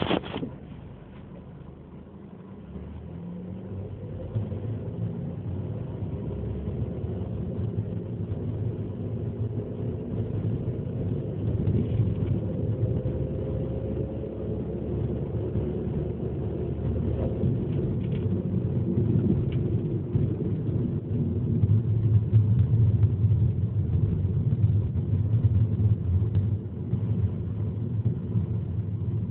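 Ford Focus engine and drivetrain running as the car pulls away and is driven through the gears. The sound builds over the first few seconds and then stays steady, with faint rising tones in the middle. The car is being driven to show an abnormal noise on the shift from second to third gear.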